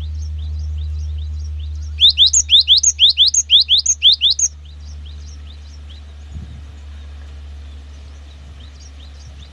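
Cinereous tit (gelatik batu) song: a fast run of rising whistled notes, about five a second, starting about two seconds in and stopping abruptly after about two and a half seconds, with fainter notes of the same kind before and after. A steady low hum runs beneath.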